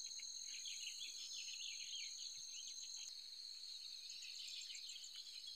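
Faint outdoor chorus of insects: a steady, high-pitched shrill that holds throughout, with small birds twittering over it, mostly in the first half.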